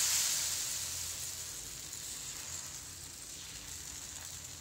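Thin sabudana and sama-rice dosa batter sizzling on a very hot flat tawa over high flame: a steady hiss, loudest at first and slowly dying down as the batter sets and bubbles into a lacy layer.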